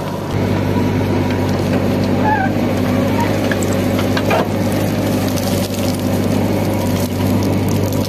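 JCB 3DX backhoe loader's diesel engine running steadily under digging load, picking up just after the start as the backhoe bucket scoops red soil. There are a few short knocks of earth and stone against the bucket, one about halfway through.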